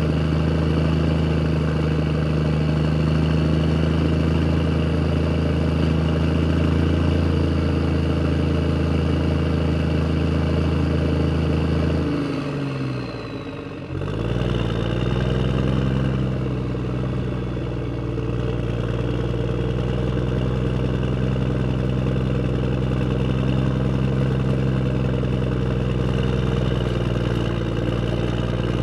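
An engine running steadily. About 12 seconds in, its pitch falls and it drops away for a second or two, then it picks back up and runs steadily again at a slightly different pitch.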